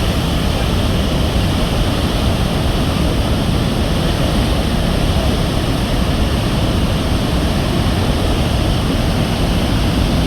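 Murchison Falls on the Nile: a loud, steady rush of falling water, even throughout and heaviest in the low end.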